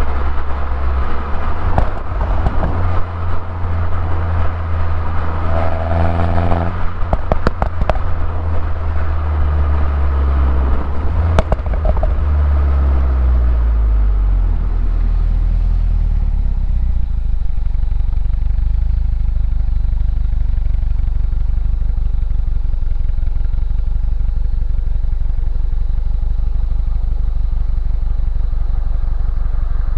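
Stock-exhaust 2011 Mini Cooper S (R56) turbocharged 1.6-litre four-cylinder. For the first several seconds it pulls under load with its pitch rising, and a few sharp clicks come around seven to eight seconds in. The note then falls away as the car slows, and it settles into a steady idle for the second half.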